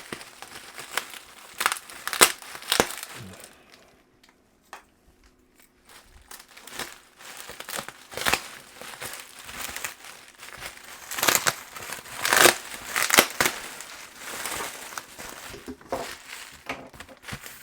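Packing material crumpling and crinkling as it is handled and pulled out of a shipping box, in irregular bursts of crackle with a short quieter pause about four seconds in.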